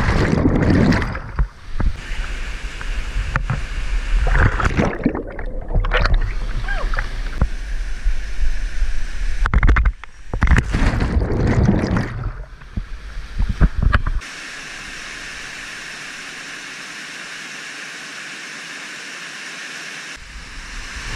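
Rushing water of a canyon waterfall and plunge pool close to the microphone, in irregular surges with a heavy low rumble and splashing. About fourteen seconds in it changes abruptly to a steady, even roar of falling water.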